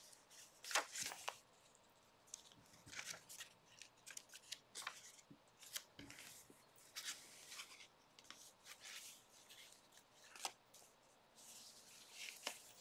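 Faint rustling and flicking of aged paper pages turned by hand in a handmade junk journal, in short irregular strokes. The sharpest page flicks come about a second in and again near ten seconds in.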